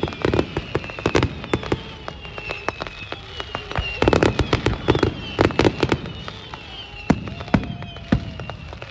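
Fireworks display going off: repeated sharp bangs and crackles in clusters, thickest about four to six seconds in, with a faint high tone drifting slowly downward behind them.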